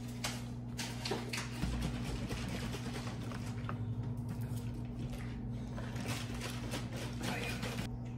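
Close-up eating sounds: chewing with many small irregular clicks, and a serrated steak knife cutting cooked chicken on a plate, over a steady low hum.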